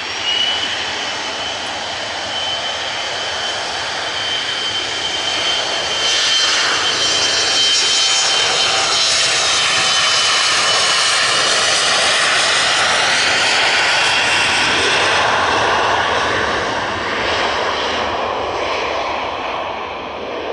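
Embraer E-Jet twin turbofan engines at take-off power during the take-off roll: a loud steady rush with a high whine. The whine and rush drop in pitch as the jet passes, then ease off slightly as it rolls away.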